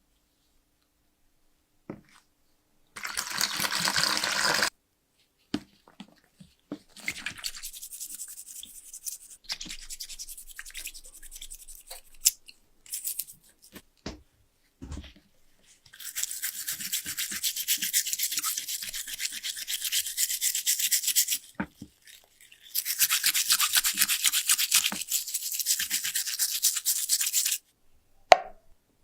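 A stiff brush scrubbing a metal lighter's rusty parts in rapid back-and-forth strokes, in several bursts of a few seconds each, with a short click near the end.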